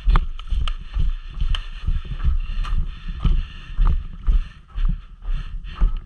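Footsteps of a player on the move over dirt, gravel and wood chips, about two heavy steps a second, with gear and the body-worn camera jostling in thumps and clicks.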